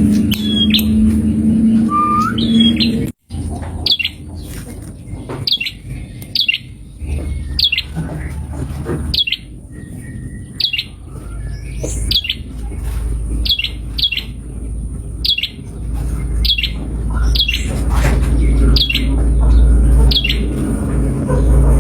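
A prenjak, a small songbird, calling in short sharp chirps repeated about once or twice a second, over a low rumble that grows louder in the second half.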